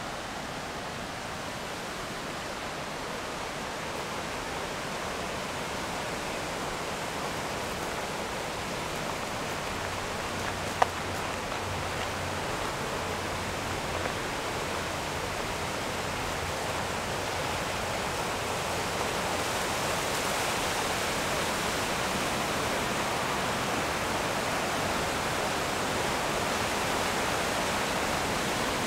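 A waterfall's steady rush of water, growing gradually louder, with one sharp click a little under eleven seconds in.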